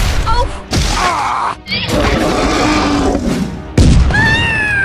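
Edited-in cartoon sound effects over music: sharp crashes and a rushing blast, then a loud hit about four seconds in, followed by a high, slightly wavering whistle-like tone.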